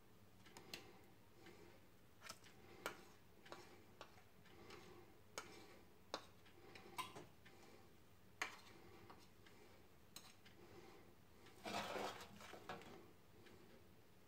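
Scattered clinks and taps of a spoon against a ceramic plate while diced potato-and-sausage hash is scooped off a paper-lined baking sheet, with a longer scrape near the end. A faint, regular ticking sits underneath.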